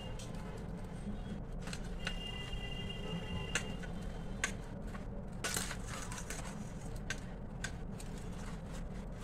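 Faint scattered taps and scrapes of a hand pressing crumbly melon-seed mixture flat on a steel plate, over a steady low hum. A faint thin high tone sounds for about a second and a half a couple of seconds in.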